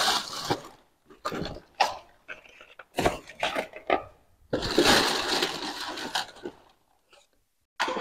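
Plastic bags rustling and cardboard boxes being handled and set down on a tile floor, in irregular bursts with a few sharp knocks, the longest stretch of rustling about halfway through.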